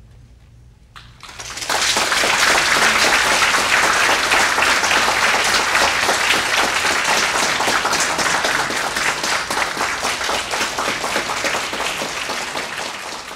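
Audience applauding: dense clapping breaks out about a second and a half in, after a brief hush, and carries on steadily, easing slightly near the end.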